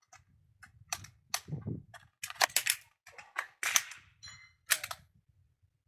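A scoped .22 rimfire rifle fired repeatedly: a string of sharp cracks, the loudest about a second apart.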